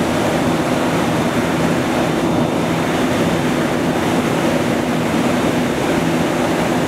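Large industrial mixing vat running: a steady machine hum under the continuous churning wash of liquid being stirred inside it.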